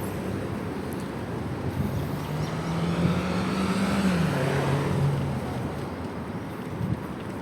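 Road traffic: a motor vehicle's engine hum swells and drops in pitch as it passes about halfway through, over a steady low rumble of street noise.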